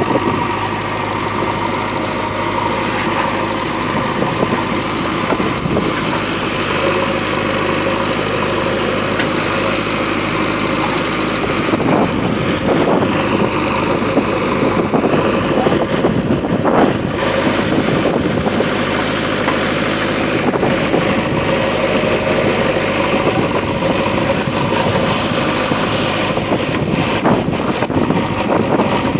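Diesel engine of a JCB backhoe loader running steadily, with a few knocks along the way.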